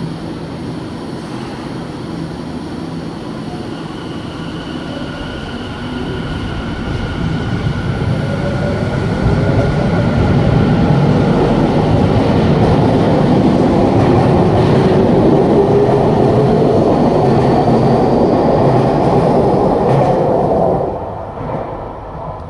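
Electric commuter train moving along a station platform, its running noise growing louder while a faint motor whine climbs in pitch as it gathers speed. The noise falls off sharply near the end.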